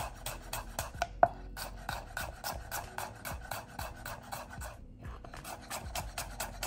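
Chef's knife slicing a red onion on a bamboo cutting board: quick, even knocks of the blade on the wood, about four a second. There are two brief pauses, and one sharper knock comes a little over a second in.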